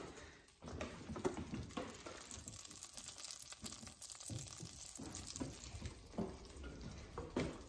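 Butter melting in hot oil in a soup pot, with a faint sizzling crackle, and a few knocks from handling at the stove, the loudest about a second in and near the end.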